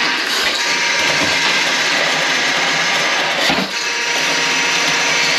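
Electric drain-cleaning machine running steadily, its motor turning the cable through a drain line clogged with grease, with a brief knock about three and a half seconds in.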